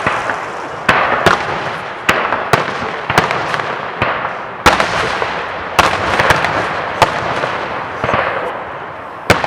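Fireworks display: aerial shells bursting with sharp bangs about once a second, each followed by a crackle.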